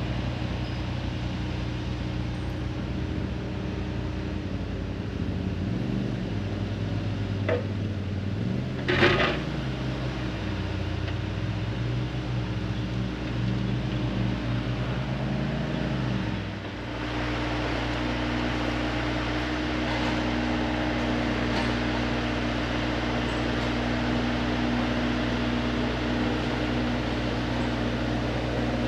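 Large excavator's diesel engine running with a steady hum. Between about six and sixteen seconds in its note wavers up and down, with a sharp knock about nine seconds in.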